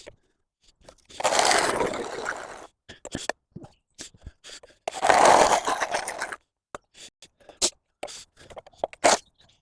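A hand tool scraping mud and leaf debris off a path surface: two long scrapes a few seconds apart, with small knocks and clicks between them.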